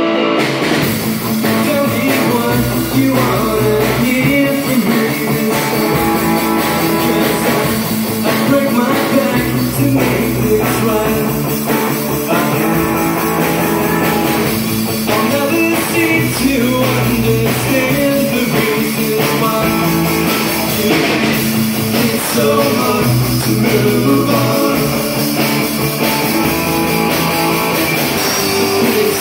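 Live rock band playing a song: electric guitars, bass guitar and drum kit at a steady driving beat.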